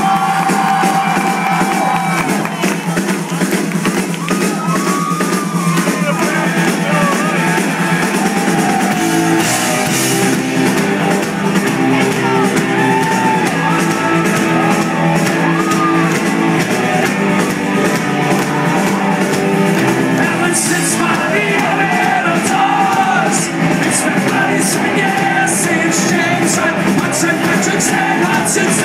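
A punk rock band playing live on electric guitars, bass and drums, with sung and shouted vocals. It is heard from within the audience, loud and continuous, with thin low end.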